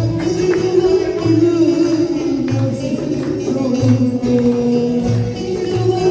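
Live Turkish folk music: a woman singing through a microphone over a bağlama (long-necked saz) and hand frame drums beating a steady, even rhythm.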